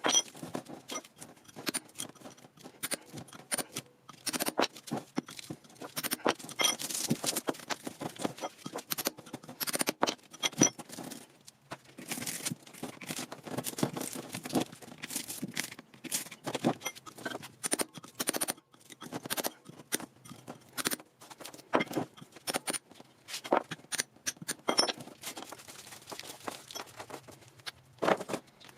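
Irregular clinks, taps and scraping of metal parts being worked by hand, with no steady rhythm.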